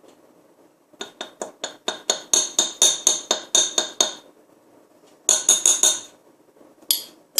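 Quick, light taps against a drinking glass as ginger is knocked into it: a run of about a dozen taps, then a shorter run of a few, then one more near the end.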